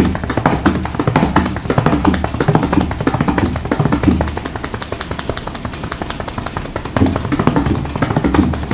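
Tabla played in a fast, steady rhythm imitating a moving train: rapid dense strokes over deep pulsing bass strokes. It grows softer in the middle and picks up louder again about seven seconds in.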